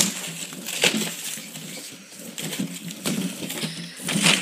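Scuffling and rustling with a few sharp clicks, the loudest about a second in and near the end.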